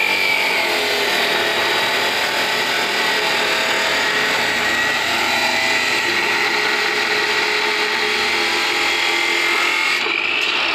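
Abrasive cut-off saw grinding through several steel reinforcing bars at once, a steady harsh grinding. The motor's whine sinks in pitch as the blade bites under load and climbs back near the end as the cut finishes.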